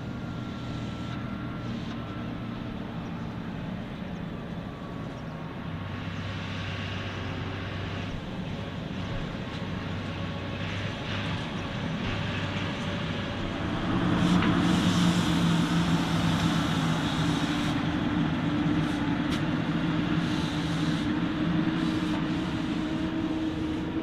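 Fendt tractor's diesel engine running steadily while hauling a full trailer of chopped maize across stubble, growing louder about fourteen seconds in.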